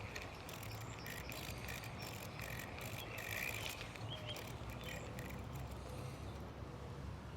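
Outdoor ambience by the water: repeated short, high chirping calls from wildlife over a steady low background, with scattered faint clicks in the first half.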